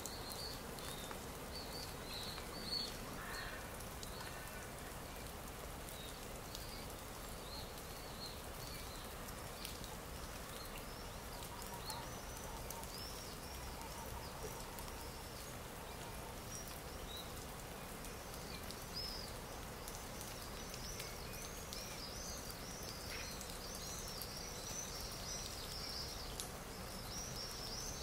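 Stock nature ambience: many small birds chirping in short, high calls over a steady outdoor hiss, the chirping growing busier near the end.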